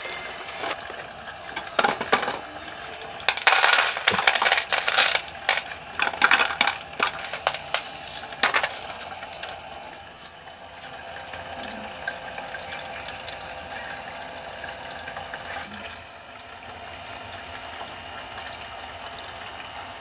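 Ceramic filter rings and small stones tipped into a plastic fountain basin, clattering and clinking for several seconds, over a steady trickle of running water from the fountain.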